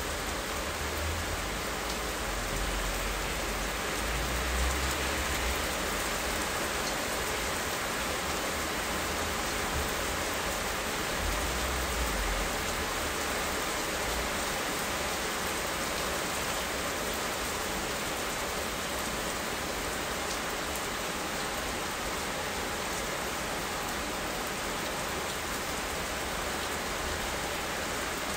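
Steady rain falling: a dense, even hiss of many drops. A low rumble swells a few times in the first half.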